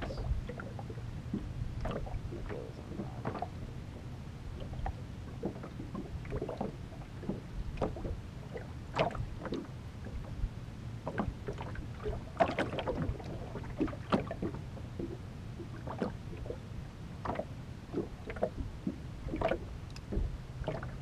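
Small waves lapping and slapping irregularly against the side of an aluminum fishing boat, over a steady low hum.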